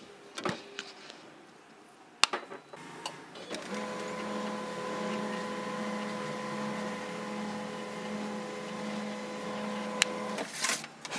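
HP 1005 laser printer powering up: a few clicks, then its mechanism runs with a steady hum for about seven seconds and stops with a click. This is the start-up cycle of a printer that had been dead, a sign that the power-board repair has brought it back.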